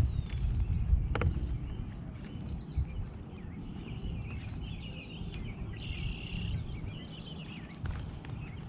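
Several birds chirping and calling, with one longer held call around six seconds in, over a steady low rumble; a sharp click about a second in.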